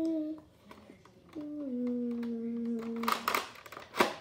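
A child humming two long held notes, each stepping to a new pitch partway through. A short plastic rasp about three seconds in and a sharp click near the end come from a plastic Nerf blaster with a drum magazine being handled.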